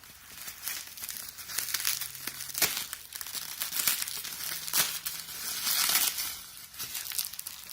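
Crinkly gift wrapping being crumpled and torn open by hand: an irregular run of sharp crackles and rustles as a wrapped item is unwrapped.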